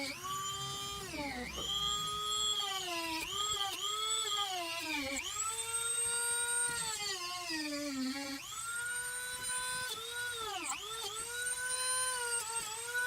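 High-speed rotary tool shaving down the lip of a body kit piece. Its whine dips in pitch again and again as it is pressed into the cut, then recovers, and it winds down at the very end.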